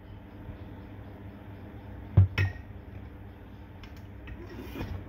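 Two sharp metal clanks close together about two seconds in, then a few light clinks: the metal parts of a dismantled electric water pump knocked and set down on a workbench.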